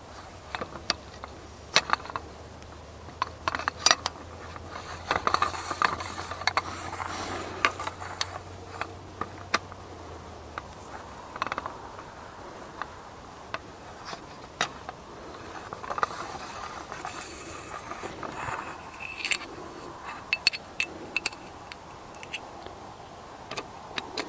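Metal mast tubes scraping and clinking as they are fed up through a tripod hub and joined segment by segment, with many sharp clicks and knocks and a run of bright metallic clinks late on.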